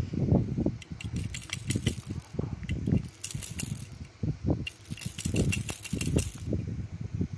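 Baby's toy rattle shaken by hand in three bouts of quick rattling: about a second in, at about three seconds, and again from about five seconds. Underneath is a low, uneven rustling rumble.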